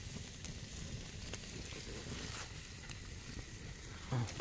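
Open wood fire burning, with a few faint crackles over a low steady rumble.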